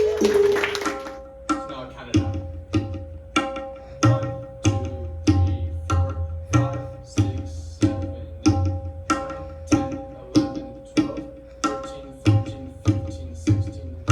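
Tabla playing a slow, even rhythmic cycle of about one and a half strokes a second, with deep bayan bass strokes on many beats, over a steady held drone tone.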